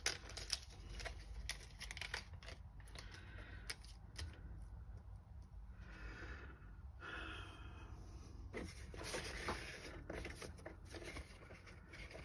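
Small plastic packet of screws being torn open and crinkled, faint, with scattered light clicks.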